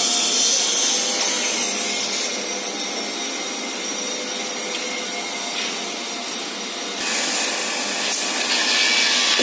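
Woodworking machinery and dust extraction running in a wood-handle factory: a steady mechanical whirr and hiss that grows louder about seven seconds in.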